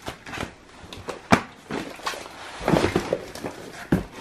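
Handling noise: plastic card-sleeve pages in a ring binder being flipped and rustled, then card boxes knocking against a plastic tote as they are lifted out. Irregular clicks and rustles, with a sharp click about a second in and a knock near the end.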